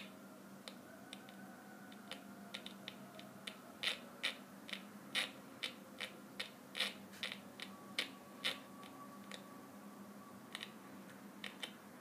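Old mechanical typewriter being typed on: irregular sharp clacks of the keys striking, a few a second, loudest through the middle stretch.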